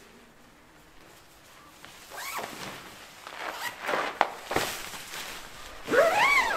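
Tent door zip being pulled shut in several separate strokes, each a rasping sweep whose pitch rises and then falls; the longest and loudest stroke comes near the end. A sharp click about four seconds in.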